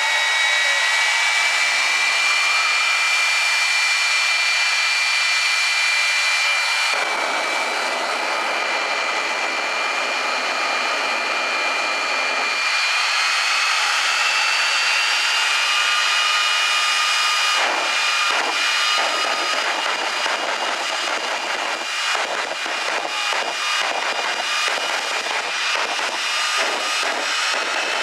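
A jet engine on a jet-powered drag racing vehicle running steadily, with several high-pitched turbine whines over a loud rushing noise. The whines shift a little in pitch now and then. About two-thirds in, the sound starts to flutter rapidly.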